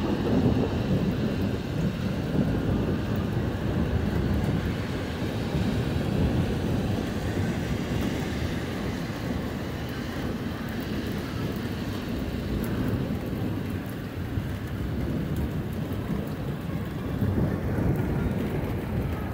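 Long, low rolling thunder over falling rain, the rumble swelling about a second in and again near the end.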